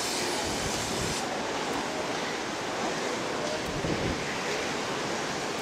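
Steady rushing noise of wind over the open deck of a cruise ship.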